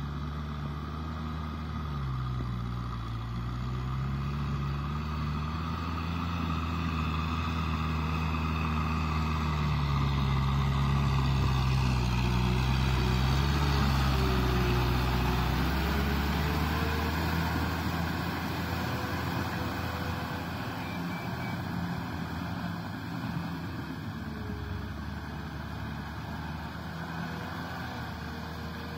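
Kubota M6040SU tractor's four-cylinder diesel engine working under load as it pulls a rotavator through wet mud. The engine note dips and rises in pitch, grows louder as the tractor passes close about halfway through, then fades.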